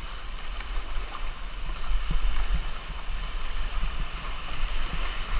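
Class 3–4 river rapids rushing and churning around an inflatable raft, with a paddle stroking and splashing in the water and a low rumble throughout.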